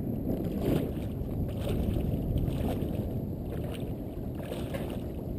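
Small water slaps and splashes against a float tube, coming irregularly over a steady low rumble of wind on the microphone.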